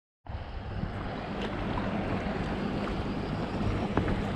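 Steady wind noise on the microphone over small waves lapping against a kayak's hull, with a couple of faint knocks. It starts after a brief silence at the very start.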